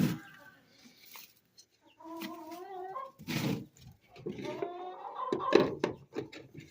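Domestic hens clucking and calling, a few drawn-out wavering calls, with several sharp knocks and bumps in between, the loudest about five and a half seconds in.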